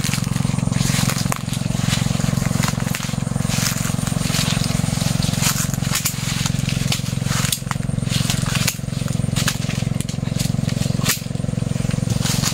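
A steady low motor hum, with scattered crackles and clicks from footsteps through dry leaf litter and from branches being handled.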